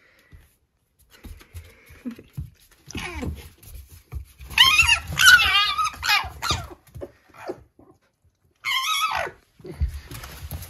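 High-pitched, wavering whining and yipping calls from a red fox and a puppy play-fighting: a run of about two seconds a little after the middle, a shorter call near the end, with scuffling on the floor between them.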